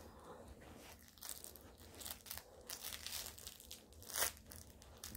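A small dog chewing and biting a toy, making faint, irregular crunching and crinkling sounds, with one louder crunch near the end.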